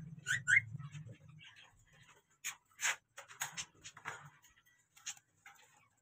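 Cockatiel giving two quick rising chirps just after the start, followed by a scatter of short scratchy clicks and rustles.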